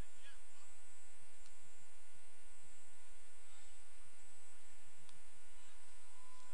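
Steady electrical hum and buzz on the audio feed, with faint background sounds and a couple of faint clicks, about one and a half and five seconds in.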